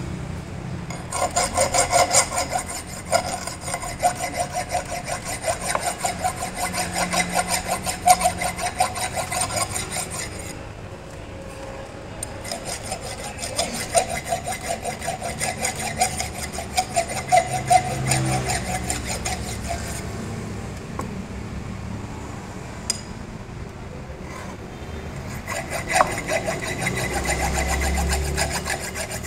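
Metal file rasping against a steel shaft in quick, repeated strokes, easing off for a moment about a third of the way through and then carrying on.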